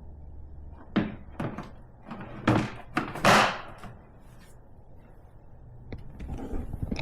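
A series of knocks and thunks from a hard plastic Milwaukee Packout tool box and its lid being handled. The loudest is a longer clatter a little past three seconds in.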